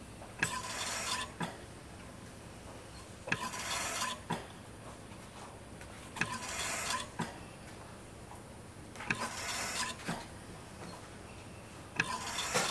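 Mechanical ventilator cycling: a breathy whoosh of air, under a second long, opening and closing with a click, repeating about every three seconds over a steady low hum.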